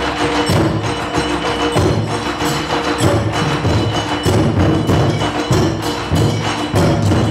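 Taiko ensemble drumming: a large drum on a tall stand struck hard with sticks, with a deep boom recurring about once a second under rapid, sharp cracks from the other drums.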